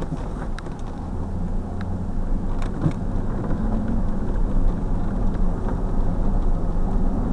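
Car engine running and the vehicle rolling slowly along a gravel drive, heard from inside the cabin as a steady low rumble, with scattered light clicks and rattles.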